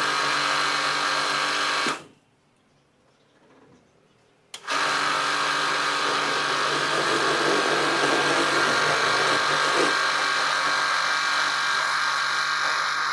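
Pressure washer running: a steady motor hum under the hiss of the spray. It cuts off for about two and a half seconds about two seconds in, then starts again.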